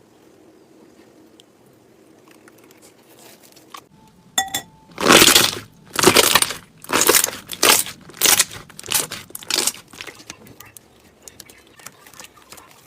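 Slime being pressed and squeezed by hand: a run of about eight loud, noisy squishes, roughly one every two-thirds of a second, starting about five seconds in after a quiet start.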